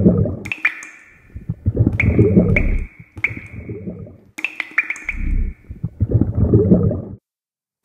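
Liquid splash and drip sound effects: several wet splashing bursts, each with sharp ringing plinks of drops, stopping abruptly about seven seconds in.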